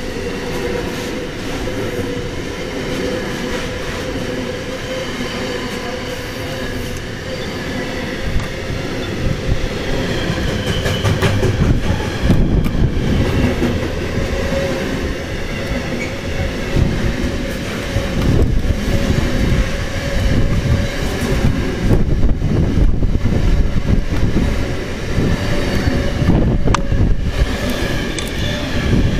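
Container flat wagons of a long intermodal freight train rolling past at speed, with a steady rumble and clatter of wheels on rail. A steady whining tone runs over it, and the train gets louder and more clattery about ten seconds in.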